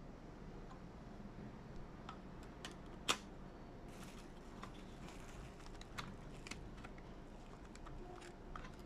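Scattered small clicks and taps of a laptop being handled, with one sharper click about three seconds in, over a faint steady low hum.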